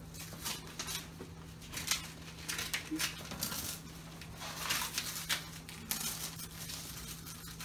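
Gift wrapping paper rustling and crinkling in irregular bursts as a wrapped box is handled and opened.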